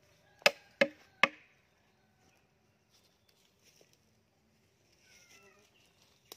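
Three sharp knocks on the wooden lid of a stingless-bee hive box in quick succession, as the lid is tapped down into place to close the hive.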